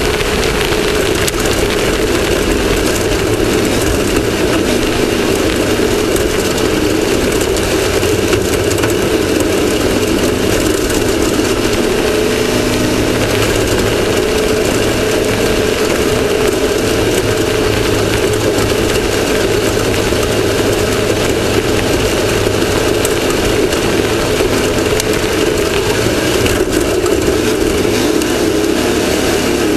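Off-road race vehicle's engine running steadily at speed, heard from an onboard camera, under a constant loud wash of wind and driving noise.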